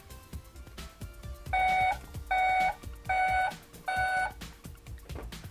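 Electronic beeping from a Tonka toy garbage truck's sound unit: four even, pitched beeps about three-quarters of a second apart, with faint plastic handling clicks.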